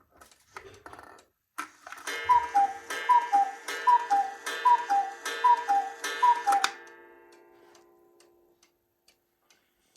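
Cuckoo clock striking six: six two-note falling cuckoo calls, one about every 0.8 s, each with a struck gong note. The gong's ringing dies away over about two seconds after the last call. A few soft clicks and a thump of the striking mechanism come just before the first call.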